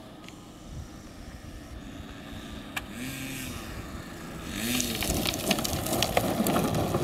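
10 cc nitro glow engine of a Depron RC plane running at low throttle as it comes in to land. It gets louder from about halfway, as the plane touches down and rolls on grass, with many small clicks and rattles over the engine.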